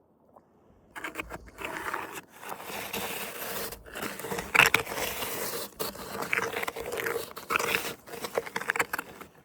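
Snow crunching and scraping close to the microphone, starting about a second in and going on in rough stretches with short breaks.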